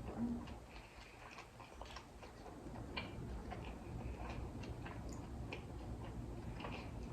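Faint chewing of a sushi roll: soft, irregular wet mouth clicks and smacks over a low room hum.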